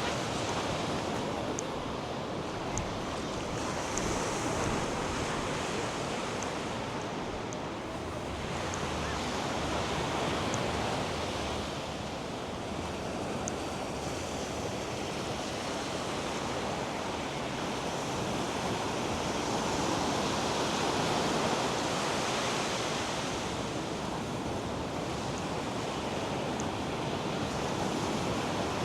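North Sea surf washing onto a sandy beach: a continuous rush of breaking waves that swells and eases in slow surges every several seconds.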